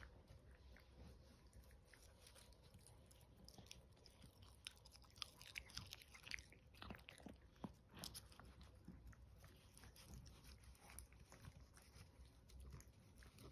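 Chihuahua puppy chewing and licking wet food out of a plastic food tray: faint smacking with sharp clicks and crackles of the plastic, busiest in the middle.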